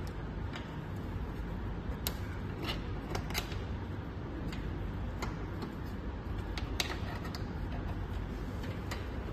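Irregular light clicks and taps as charging cables, plugs and key fobs are handled against the sheet-metal panel of a charging cabinet, over a steady low rumble.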